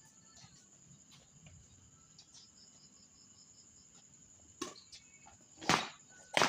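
Crickets trilling steadily on one high pitch. A few sharp knocks come near the end, the loudest about a second before it finishes.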